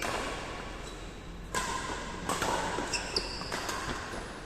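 Badminton rally in an echoing hall: sharp racket hits on the shuttlecock, four of them about a second apart, each ringing on in the room.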